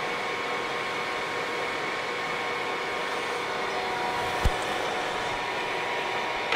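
Clausing Colchester 15x50 gap-bed engine lathe running steadily under power in threading mode, its headstock gearing giving an even hum with a steady whine, sounding healthy. A single short knock about four and a half seconds in.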